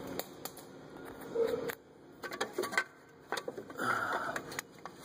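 Irregular clicks and light metallic taps from hand tools and parts being handled around the alternator, as a bolt and cover are worked loose.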